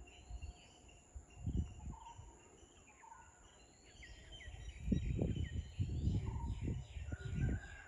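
Outdoor daytime ambience: several birds chirping and calling in short repeated phrases over a steady high insect drone. Irregular low rumbles on the microphone are loudest in the second half.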